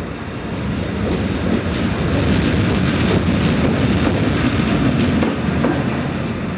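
Newag Griffin (EU160) electric locomotive running light past at close range: a rumble of wheels on rail that swells from about a second in and eases near the end, with a few sharp clicks from the wheels.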